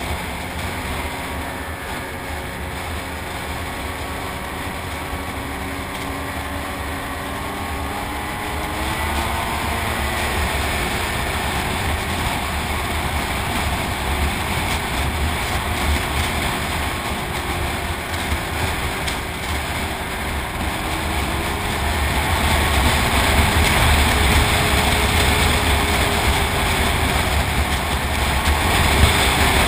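Snowmobile engine running as the sled travels along the trail. Its pitch rises about a third of the way in as it speeds up, and it gets louder in the last third.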